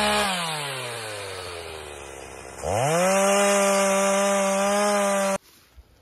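Gas chainsaw cutting through a log: the engine slows down over about two seconds as the throttle eases, then revs quickly back to full speed and holds there as the chain cuts on, before the sound stops abruptly near the end.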